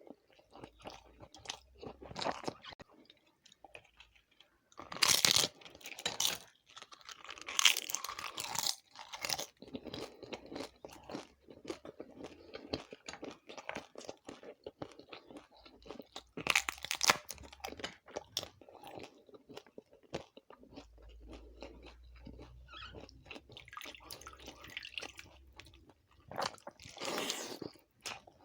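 Close-miked eating: a person chewing steadily with the mouth near the microphone, broken by a few louder, crisp crunching bites, about four through the stretch.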